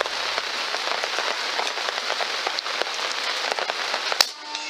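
A steady crackling hiss, then a single sharp crack about four seconds in. The crack is plausibly a shot from the AEA Challenger 457 big-bore PCP air rifle firing a .458 slug.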